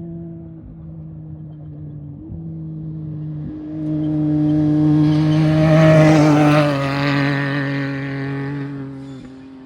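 Off-road race vehicle's engine approaching, passing close and going away: the engine sound grows from about halfway in, peaks about six seconds in, drops in pitch as it passes and fades near the end.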